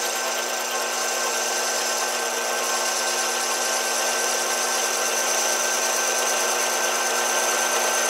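Metal lathe running steadily with a whine of constant tones as its four-jaw chuck spins and a small boring bar takes a light cut inside a thin filter adapter ring.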